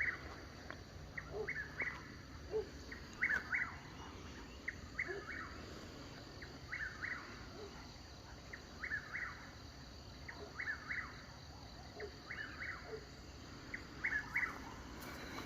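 A bird calling in short phrases of quick chirps, repeated about every one and a half to two seconds, over a faint steady outdoor background.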